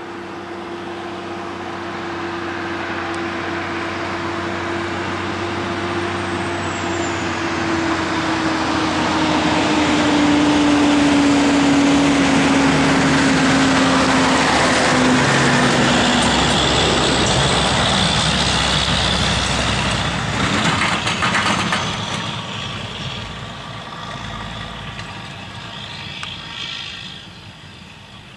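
Semi truck pulling a lowboy trailer loaded with a Caterpillar machine drives by. Its engine grows louder to a peak around the middle and then fades, and its note drops in pitch as it passes.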